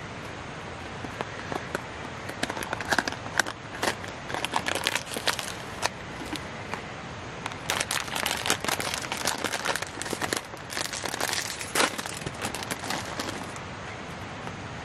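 Koala's March biscuit packaging being opened and handled: the plastic wrapper crinkles in many short, irregular crackles.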